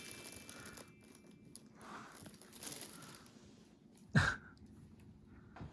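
A large thin plastic bag rustling and crinkling as cats move inside and over it, with one short loud knock about four seconds in.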